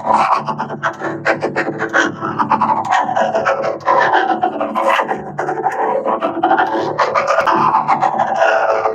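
Music with a held, droning chord under a dense run of rapid scratchy, rasping clicks.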